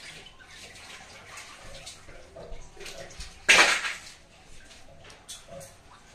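Tap water running and splashing as vegetables are washed in a plastic basket, with scattered small knocks and a brief, louder burst of water noise about three and a half seconds in.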